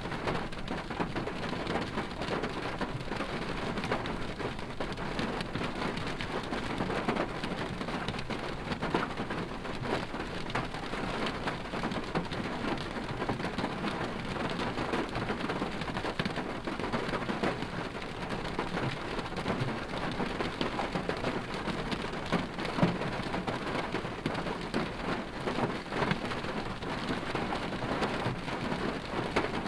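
Steady noise heard from inside a car's cabin: a dense crackling patter over a low rumble, unchanging throughout.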